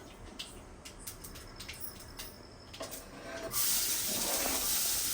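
A few light clicks of utensils, then, about three and a half seconds in, a sudden steady sizzle as chopped onion and green chillies go into the hot oil in the pan to be sautéed.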